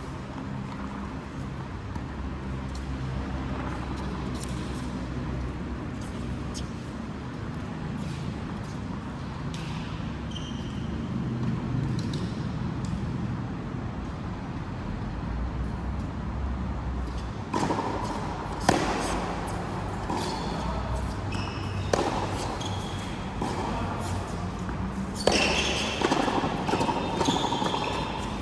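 Racket-sport rally in the second half: irregular sharp ball strikes, with short high squeaks of court shoes. Before it, a steady low murmur of background voices.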